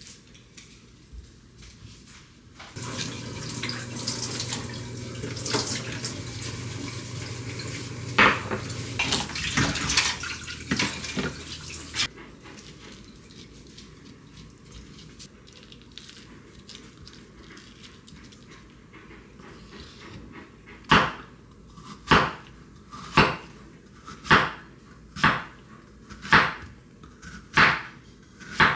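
Water running from a tap into a sink for about nine seconds, with some clatter of dishes. Near the end, a chef's knife slicing Korean melon thin against a wooden cutting board: about eight sharp knocks, roughly one a second.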